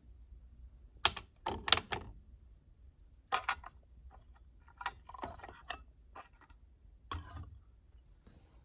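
Short clicks and rattles from small hard objects being handled, in five or so separate bunches a second or two apart.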